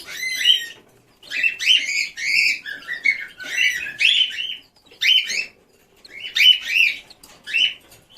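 Newly hatched chicks peeping loudly and repeatedly, in quick runs of high, arching peeps with short pauses between the runs.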